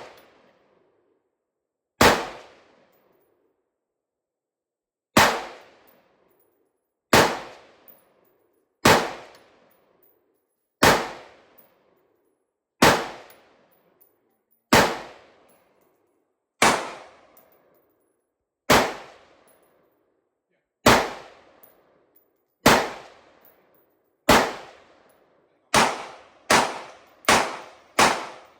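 AR-15-pattern 5.56 mm rifle fire: about sixteen single shots, each with a short echo dying away, at roughly one every two seconds, then quickening to nearly a shot a second near the end.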